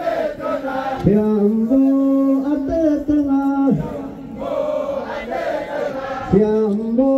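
A group of voices chanting a traditional song together in long, held notes. One phrase begins about a second in and ends a little before the midpoint, and the next begins shortly before the end.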